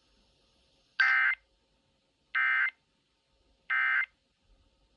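Emergency Alert System end-of-message (EOM) data tones: three short, buzzy bursts of SAME digital code about a second apart, signalling that the alert message is over.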